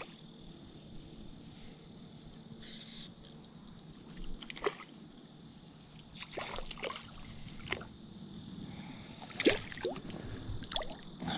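Light splashing and sloshing of water as a small hooked smallmouth bass is played in and thrashes at the surface, a few sharp splashes scattered through the second half.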